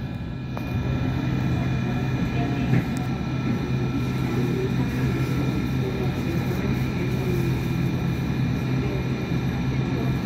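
A first-generation Hong Kong Light Rail car running along the track, heard from inside the car: a steady low hum with rumble, and a faint whine of several steady higher tones.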